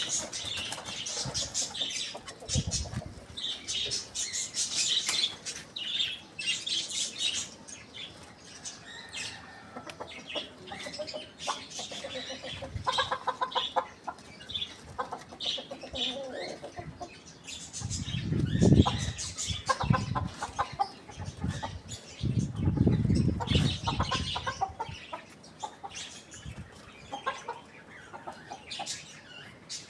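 Chickens clucking in short pitched calls over rustling and wing flapping, with two louder low rumbles in the second half.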